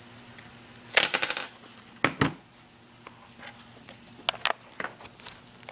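Metallic clicks and clinks of a rifle cartridge and magazine being handled as a round is worked out of an AR-15 magazine: a quick rattle of clicks about a second in, two sharp clicks a second later, and a few lighter clicks near the end.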